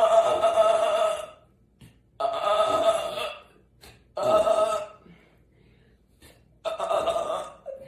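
A woman belching loudly four times, each burp lasting about a second, spaced roughly two seconds apart.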